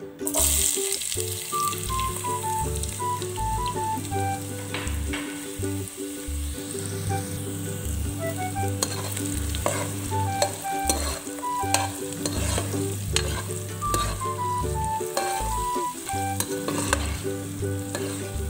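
Chopped onions and ginger sizzling in hot oil in a pan, the sizzle starting suddenly as they go in, then being stirred with a spatula. Background music plays throughout.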